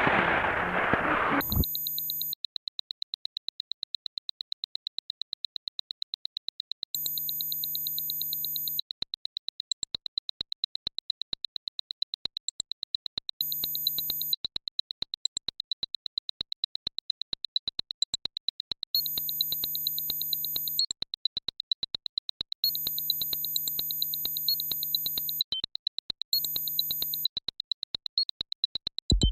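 Electronic synthesized sound file: a burst of noise cuts off abruptly, leaving a steady high tone with sharp clicks that come faster and faster. Blocks of low and high sustained tones switch on and off several times over it.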